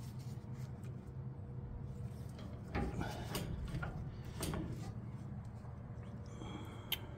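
Metal column-shift levers at the base of a steering column being worked by hand, clunking and scraping in a few short knocks in the middle, with a sharp click near the end, over a steady low hum.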